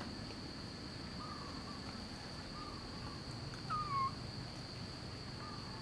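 A steady high insect drone, over which an animal gives four short whistle-like calls. The loudest call comes about four seconds in and dips, then rises.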